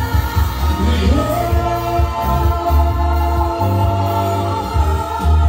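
Loud live pop music with singers' voices over a heavy, pulsing bass line.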